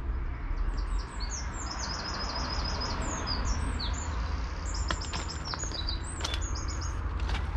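A songbird singing rapid trilled phrases of quickly repeated high notes, over a steady low rumble, with a few sharp clicks in the second half.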